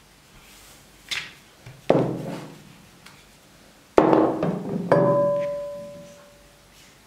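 Three loud, sharply struck ringing notes, about 2, 4 and 5 seconds in, each fading over about a second. A brief whoosh comes before the first. The last note leaves a clear high tone that fades out over about a second and a half.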